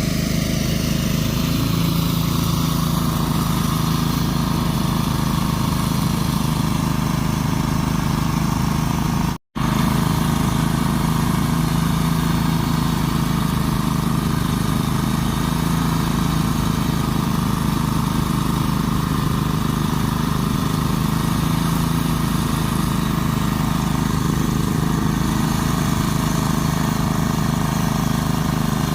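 Small engine running steadily at a constant high speed, a continuous hum that cuts out for an instant about nine seconds in.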